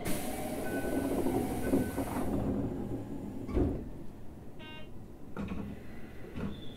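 Toei 5300 series electric train running, heard from on board: a steady rumble of wheels on track. A loud hiss opens the passage and stops after about two seconds, a single thump comes about halfway, and a high electric whine starts near the end.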